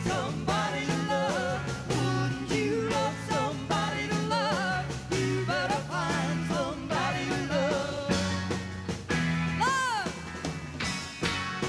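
Rock band playing live: a woman singing lead over electric guitar, bass and drums, with a high note that swoops up and falls near the end.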